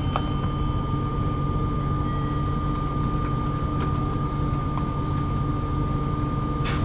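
Steady low rumble and hum inside a Yokohama Municipal Subway 3000A train car, with a steady high-pitched tone over it and a brief click near the end.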